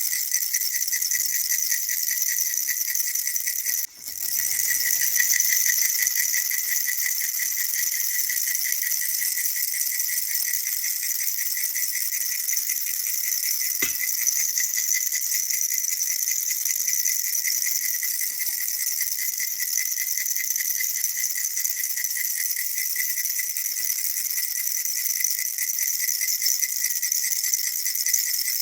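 Baby rattle shaken fast and without a break, a dense jingling rattle with a bell-like ring. It cuts out for a moment about four seconds in, then carries straight on.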